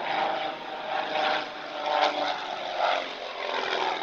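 Engine of a propeller-driven aeroplane running steadily, its pitch shifting slightly.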